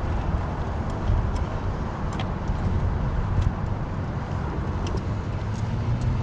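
Steady low background rumble with a few faint, light clicks scattered through it, from bolts being started by hand during generator reassembly.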